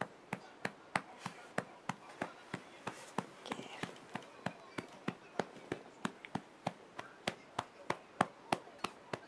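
A hand patting a newborn baby's back in a steady rhythm, about three pats a second, to bring up a burp.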